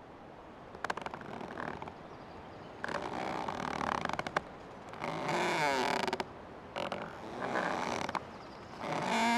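Old tree creaking: a run of about five drawn-out creaks, each a second or so long, several sliding up and down in pitch, the later ones louder.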